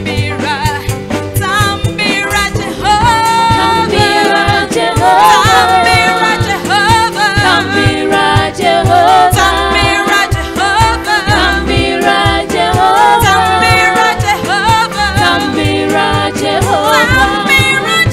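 A woman singing a gospel praise-and-worship song into a microphone over instrumental accompaniment.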